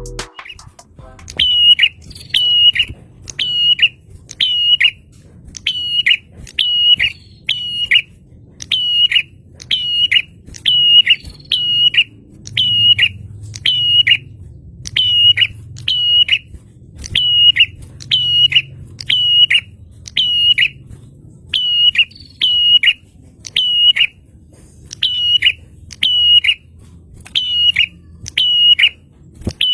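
A prenjak (prinia) calling: one sharp, high note repeated about three times every two seconds, in short runs with brief pauses, over a faint low hum.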